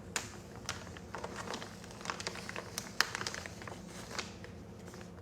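Rustling and crinkling of a silky polyester shirt being handled, with irregular small clicks and crackles, the sharpest about three seconds in.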